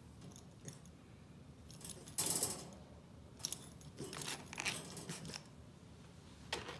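A bulldog puppy stirring in a wire crate, with light metallic jingling and clinking in several short bursts. The loudest burst comes a little over two seconds in.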